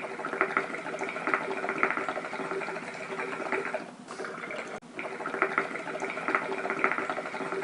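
Water bubbling and gurgling through a hookah's base as smoke is drawn, a dense run of small pops. It dips briefly about four seconds in, then the same stretch of bubbling starts over.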